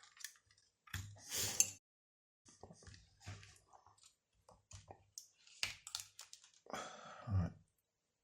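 Small clicks, scrapes and rustles of hands handling an opened multimeter and its small glass fuse, just slid out of its holder.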